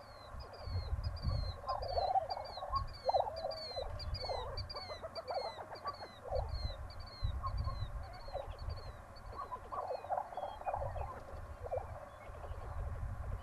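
Lesser prairie chickens on a lek calling in irregular bursts of cackling and gobbling notes. Behind them another bird repeats a high, falling note two or three times a second, fading out near the end.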